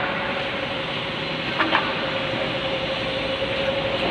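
Steady mechanical running noise with a held hum, like an engine or machine running, and one brief sharp click near the middle.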